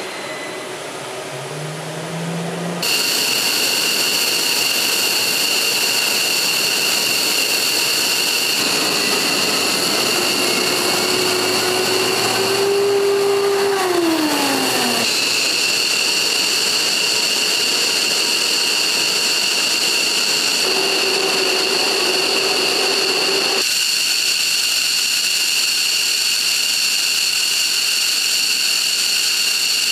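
F-15C Eagle's jet engines running on the ground: a steady high-pitched turbine whine over a rushing hiss, with a lower tone that rises and then falls about halfway through.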